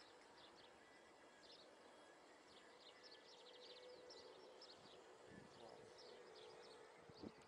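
Faint outdoor ambience of small birds chirping and trilling again and again, with a couple of soft low thumps near the end.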